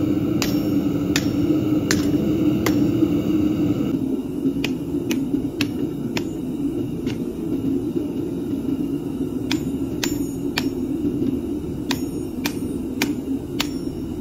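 Hand hammer striking a red-hot steel leaf spring on a steel block anvil: single blows roughly every half second to a second, with a few short pauses, each with a brief metallic ring. A steady low roar runs underneath.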